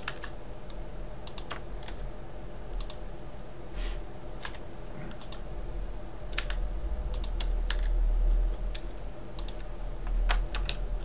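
Irregular computer keyboard keystrokes, scattered singly and in quick little runs, as hotkeys for resizing, moving and rotating a mesh in Blender are pressed. A steady low hum runs underneath and swells for a couple of seconds in the middle.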